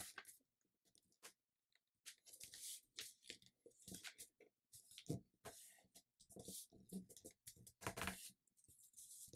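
Faint rustling and scraping of a sheet of letter paper being folded and creased by hand as fingers slide along the fold of a paper airplane's wing, in short scattered strokes with a brief pause near the start.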